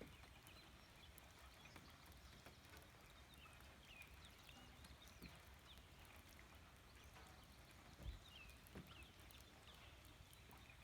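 Faint nature ambience: scattered short bird chirps over a steady low rumble, with a single thump about eight seconds in.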